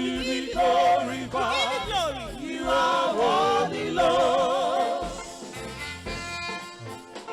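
Gospel music: singing voices with a wide vibrato over a bass line, giving way about five seconds in to an instrumental line of steadier held notes.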